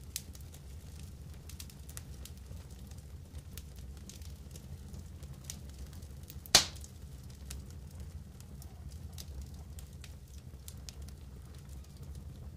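Wood campfire embers crackling under pork grilling in a wire basket, with scattered small pops and one loud sharp crack about six and a half seconds in.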